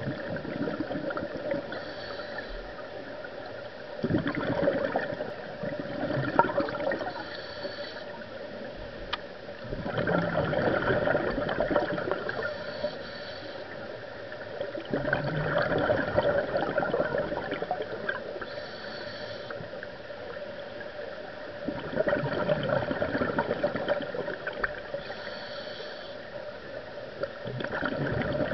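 Scuba diver breathing underwater through a regulator: long bubbling exhalations come about every six seconds, with a fainter hiss between them.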